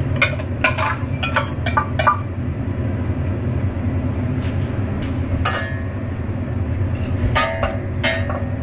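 Metal utensils clinking against a stainless steel saucepan: a quick run of sharp taps in the first two seconds as butter goes into the milk, then ringing clinks about halfway and again near the end as a whisk goes into the pan. A steady low rumble runs underneath.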